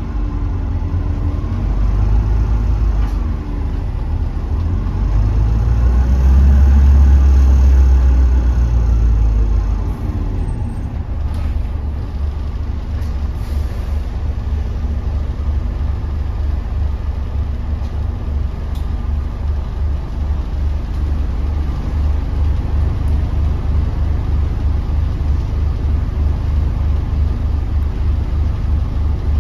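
Volvo B5LH hybrid double-decker bus's diesel engine heard from the upper deck: a low rumble that grows louder over the first ten seconds while the bus drives, then drops about ten seconds in to a steady, evenly pulsing idle while the bus stands.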